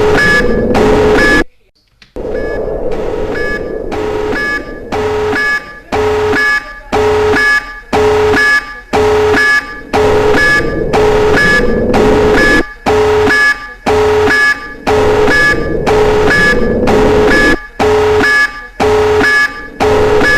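Nuclear alert alarm: loud electronic beeping pulses about twice a second, over a lower tone that rises in pitch every few seconds. The sound drops out briefly about a second and a half in, then resumes.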